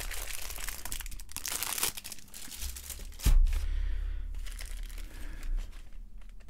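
Plastic bubble-wrap packaging crinkling and rustling as hands pull the kit's contents out of it, with a single thump about three seconds in.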